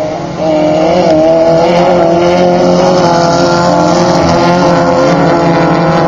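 Air-cooled flat-four engine of a Class 11 stock VW Beetle off-road race car running loud, its pitch wavering up and down with the throttle. It comes in suddenly about half a second in and holds steady.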